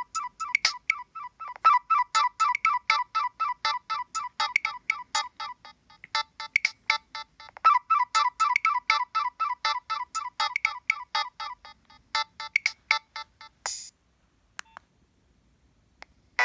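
Nokia 7250i mobile phone playing a preloaded ringtone through its small speaker: a quick melody of short electronic beeps, several notes a second, that stops about three seconds before the end.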